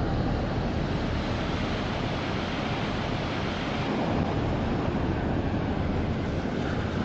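Ocean surf breaking and washing up a sandy beach in a steady rush, with wind rumbling on the microphone.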